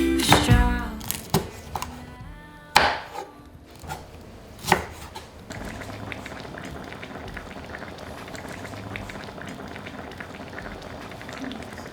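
A few sharp knocks and clatters of kitchen utensils and food being handled. Then, from about five and a half seconds, a steady bubbling hiss of liquid simmering in a pot.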